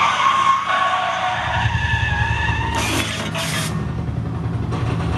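Car tires squealing with a deep engine rumble that sets in after about a second. A loud hissing burst from the mist jets follows about three seconds in.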